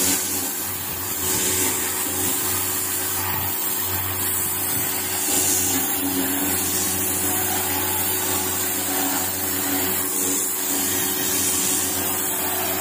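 High-pressure water jet hissing steadily against a fishing boat's hull as it blasts off barnacles and moss, with a steady machine hum underneath.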